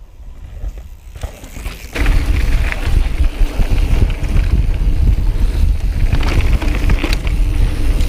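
Mountain bike being ridden: tyres rolling and rattling over the trail with wind buffeting the camera microphone, quieter at first and much louder from about two seconds in.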